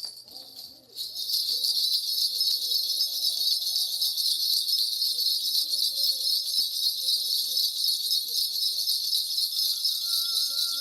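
A shaman's cluster of brass ritual bells (mudang bangul) is shaken continuously, starting about a second in, to call the spirits for a divination. A faint low voice murmurs underneath.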